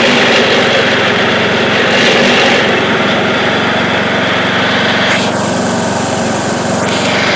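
Craftsman YT3000 riding lawn tractor's engine running steadily at high throttle; its higher-pitched part drops off for a couple of seconds past the middle while the engine note carries on.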